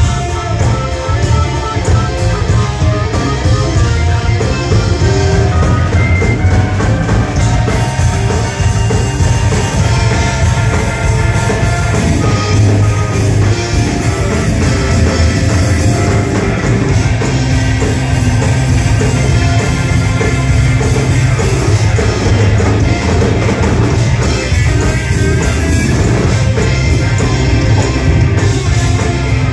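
Rock band playing live, heard from among the audience: bass guitar, keyboards and drum kit, with a strong, heavy bass.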